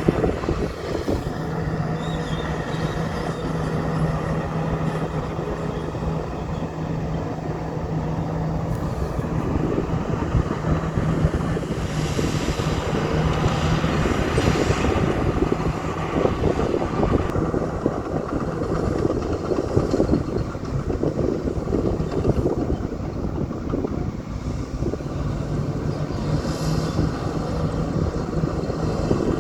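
Old Komatsu bulldozer's diesel engine running steadily under load, with dense mechanical rumble and a steady hum that drops away about halfway through and returns near the end.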